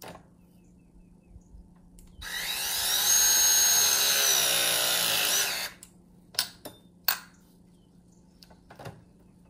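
Milwaukee M18 Force Logic press tool running one press cycle, crimping a copper press tee: a motor whine of about three and a half seconds that rises in pitch as it starts, holds steady, then cuts off. A few sharp clicks follow.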